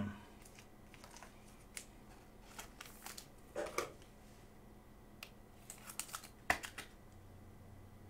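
A few faint, scattered clicks and rustles of plastic as a trading card is handled and slipped into a rigid top loader.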